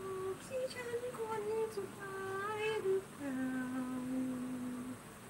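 A woman's voice humming a slow tune without words. A few wavering notes are followed by one long, steady lower note that stops about five seconds in.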